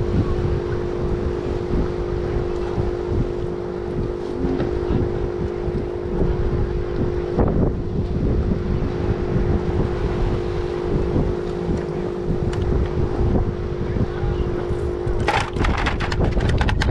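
Wind buffeting the microphone with a low rumble, under a steady mechanical hum that cuts off suddenly about 15 seconds in. A quick run of sharp clicks and knocks follows near the end.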